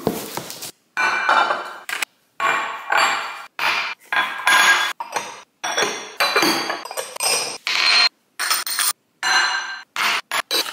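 Anchor Hocking glass bowls, custard cups and baking dishes clinking and knocking as they are unpacked and set down on a granite countertop. The sound comes in short stretches broken by sudden gaps of silence.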